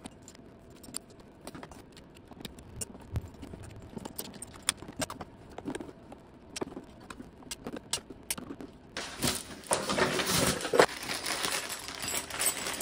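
Small metal clicks and taps of a screwdriver and bolts being worked on a motorcycle saddlebag's mounting hardware. About nine seconds in, louder crinkling and rustling of a plastic parts bag and its wrapping takes over.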